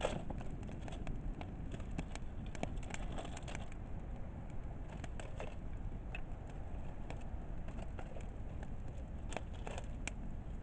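Wood campfire crackling, with scattered sharp pops and snaps over a low, steady background rumble; the loudest snap comes right at the start.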